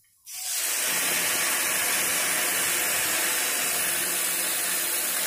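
Milk poured into a hot kadai of ghee-roasted vermicelli, sizzling with a loud, steady hiss that starts abruptly a moment in.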